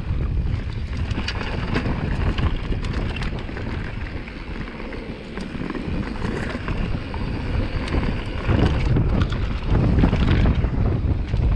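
Mountain bike riding down a rocky downhill trail: wind buffeting the camera microphone, with tyres on dirt and rock and many quick clicks and rattles from the bike. It gets louder and rougher about eight seconds in.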